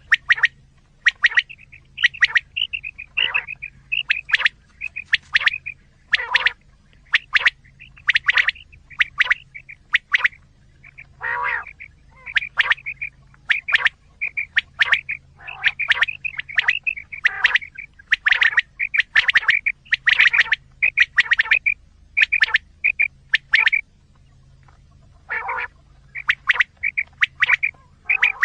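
Quail calls played as a hunting lure: short, sharp calls repeated in quick runs, several a second, with a brief pause about three-quarters of the way through.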